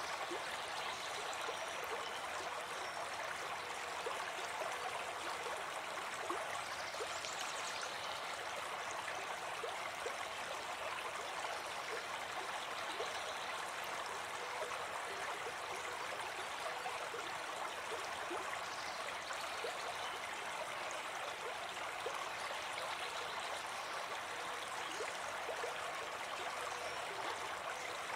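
Steady noise of running water, even and unbroken throughout.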